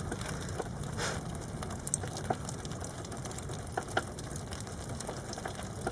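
Rain falling during a thunderstorm: a steady hiss with scattered drips and taps.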